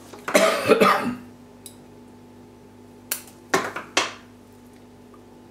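A brief rustle near the start, then three short, sharp snips of scissors about three to four seconds in as dead orchid roots are cut back.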